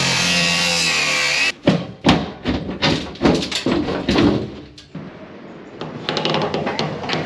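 Cordless angle grinder cutting into a bracket, with a steady whine that cuts off suddenly about a second and a half in. It is followed by a run of about eight heavy knocks and bangs over the next three seconds.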